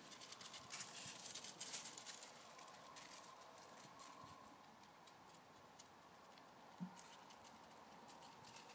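Faint, quick pattering and light clicks of small paws on paving and gravel, from six-week-old puppies scampering about, mostly about one to two seconds in. A single short soft knock near the seventh second.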